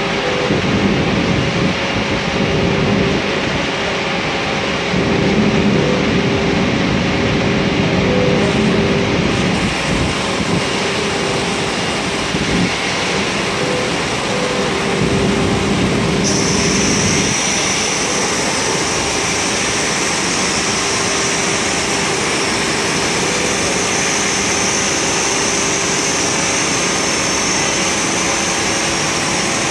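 A CNC diamond grinding machine for car glass running, its gantry head travelling over the glass sheet with a steady machine hum and low surges that come and go. About sixteen seconds in, a high steady whine starts and holds.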